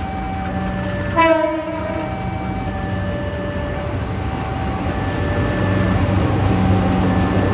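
BB203 diesel-electric locomotive approaching, its engine running with a low hum that grows louder, and a short horn blast about a second in. A level-crossing warning siren keeps alternating between two tones.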